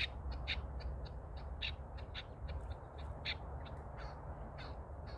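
Chukar partridge calling: a quick run of short, sharp chuk notes, several a second, spacing out in the second half.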